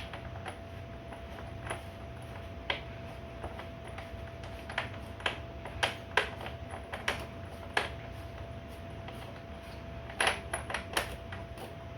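Small metal clicks and ticks, irregular and about one a second with a quick cluster near the end, as a drive-side bottom bracket cup is unscrewed by hand out of a bike frame's threaded shell.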